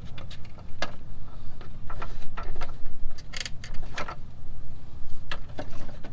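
Irregular plastic clicks and knocks, about half a dozen, from the turn signal lamp housing's retaining tabs being pressed and worked loose. The loudest come a little past halfway.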